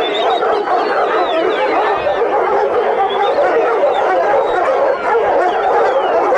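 A large group of dogs barking and howling together in a continuous, overlapping din.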